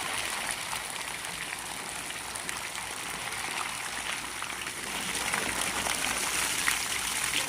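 Water running and trickling steadily with faint small splashes, growing a little louder about two-thirds of the way through.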